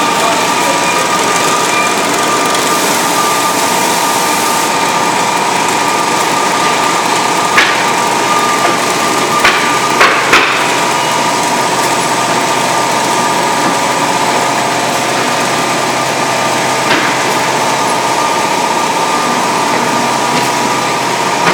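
Petratto carton folder-gluer running, a steady mechanical whir with a constant whine from its belts and rollers. A handful of sharp clacks cut through, clustered about eight to ten seconds in, with one more later.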